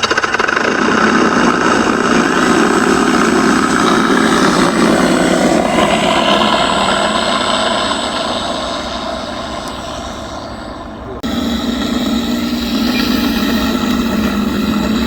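FMS P-51 Mustang electric RC model running, its onboard sound system playing a simulated piston-engine sound over the propeller noise. The sound is steady, fades somewhat past the middle, then cuts abruptly to louder running about eleven seconds in.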